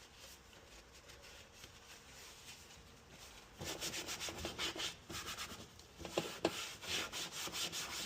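A rag wiping up spilled coolant, rubbing in quick, uneven strokes that start about three and a half seconds in.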